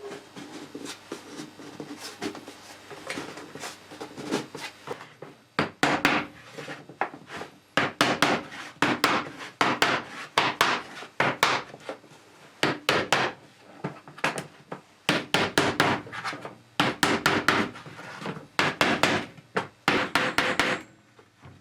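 Rapid back-and-forth scraping strokes of a hand tool, as in filing, rasping or sanding, in short runs with brief pauses between them.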